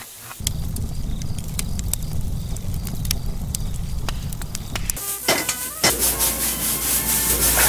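A fire burning with a low rumble and scattered crackles. About five seconds in it gives way to loud sizzling of food being stir-fried in a wok over a gas flame, with a couple of sharp knocks.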